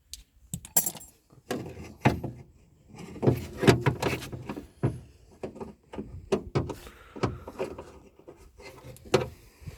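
Irregular clunks, knocks and scraping of a car door and its fittings being handled and shifted, with several sharp taps along the way.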